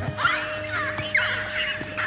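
A jumble of shrill, overlapping animal calls sweeping up and down in pitch, over a steady music drone.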